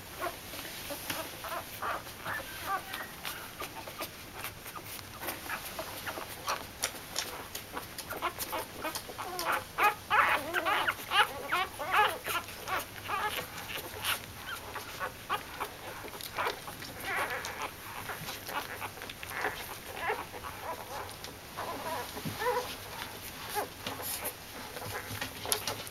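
Week-old Pembroke Welsh Corgi puppies nursing. They give short, high squeaks and whimpers among frequent soft clicks, busiest about halfway through.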